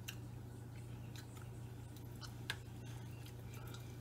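A person chewing a mouthful of food: faint scattered clicks and soft wet smacks, one sharper click about two and a half seconds in, over a steady low hum.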